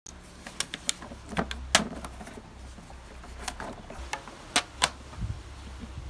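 Irregular clicks and knocks of hands handling dry pinecones and string in a cardboard box, over a low steady rumble.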